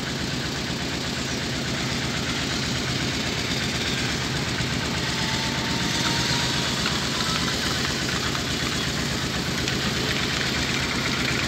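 Vehicle engine idling steadily, with an even low throb.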